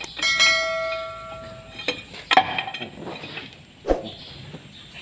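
A hammer strikes metal, leaving a clear bell-like ring that fades over about a second and a half, followed by a few shorter metallic knocks and a duller thud near the end.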